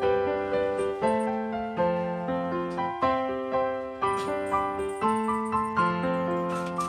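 Background piano music, notes struck one after another in a steady, even rhythm.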